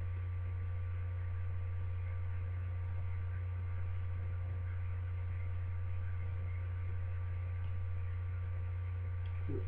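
Steady low electrical hum on the recording, one constant tone with faint higher overtones and nothing else.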